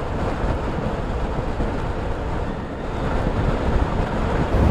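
Strong wind rushing and buffeting the microphone outdoors, a deep, even roar that grows a little louder near the end: the wind picking up ahead of an approaching tornado.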